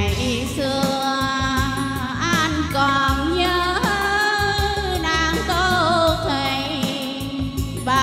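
A woman singing a Vietnamese tân cổ song into a microphone over an instrumental accompaniment, her long held notes wavering with vibrato.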